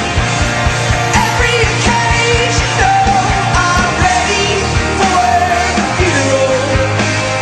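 Background music: a rock song with a sung vocal over a steady bass line and drum beat. The singing comes in about a second in and drops out near the end.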